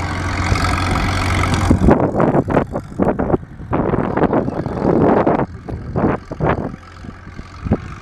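Cable-controlled crawler bulldozer's engine running as the machine pushes a load of dirt: a steady hum for the first two seconds, then uneven loud bursts through the middle, easing off near the end.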